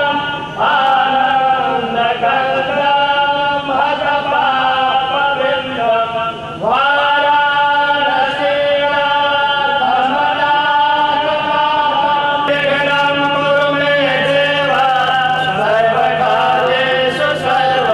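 A man chanting a Hindu invocation (mangalacharan) in long, drawn-out held notes. A new phrase begins roughly every six seconds.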